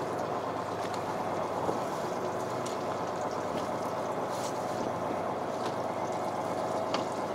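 Fishing boat's engine running steadily: a constant drone with a few fixed tones. A few light clicks from fishing tackle being handled sound over it.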